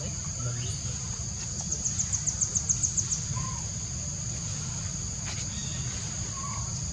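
Insects droning steadily at a high pitch, with a fast run of about a dozen pulsed chirps, roughly eight a second, about two seconds in. Two faint short chirps come later over a constant low rumble.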